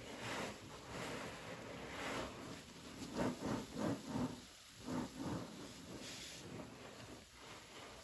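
A soapy sponge loaded with Xtra Pine cleaner suds being squeezed and worked in a rubber-gloved hand over a basin of foam: wet squelching and crackling lather, with a run of louder squishes between about three and five and a half seconds in.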